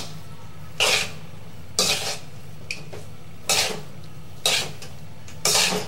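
Spatula scraping and tossing noodles and vegetables against a metal pan, in short strokes about once a second, six in all.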